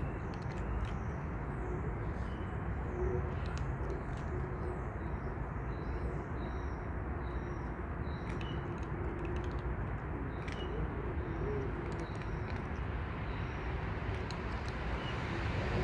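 Outdoor bird sounds: scattered short chirps and a low, wavering cooing call over a steady background rumble, with a few faint clicks.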